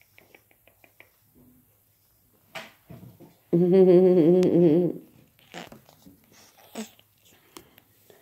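A woman's wordless hum, about a second and a half long with a low, wavering pitch, the loudest sound here. Around it, soft rustling and light clicks from handling a kitten on a towel, with a quick run of faint ticks in the first second.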